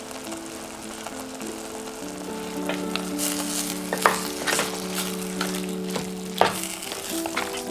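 Tomatoes and peas sizzling in a stainless steel pot while a wooden spoon stirs them. Two sharp knocks of the spoon against the pot come about four and six and a half seconds in. Soft background music plays under it.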